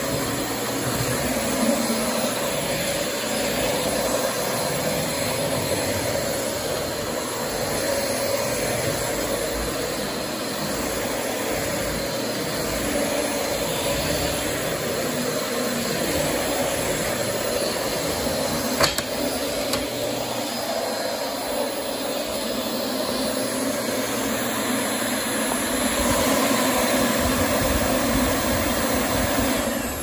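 Dyson DC25 ball upright vacuum running and being pushed across a hardwood floor, with a steady motor whine and rushing airflow. A single click comes about two-thirds of the way through. The motor shuts off and winds down near the end.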